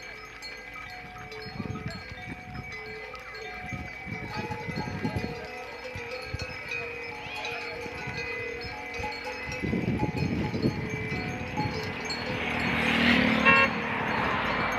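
Many cowbells on a moving herd of cows ringing continuously and irregularly, several overlapping tones at once. A brief louder burst of noise comes near the end.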